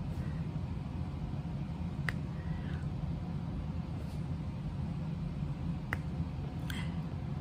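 Steady low background hum, with two faint sharp clicks, one about two seconds in and one near six seconds.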